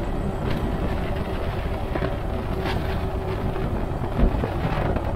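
Super73 S2 e-bike riding along: steady wind rumble on the chest-mounted camera's microphone, with tyre noise and a faint steady hum. There are a few light rattles and one short thud about four seconds in.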